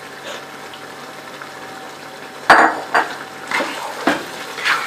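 Wooden spoon stirring boiled chana dal into mutton curry in a cooking pot: a soft stirring sound over faint sizzling at first, then about five sharp knocks and scrapes of the spoon against the pot in the second half.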